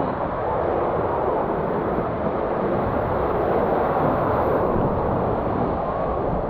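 Continuous rushing of breaking surf and whitewater washing around a paddleboard, picked up close by a board-mounted GoPro, with a low rumble underneath.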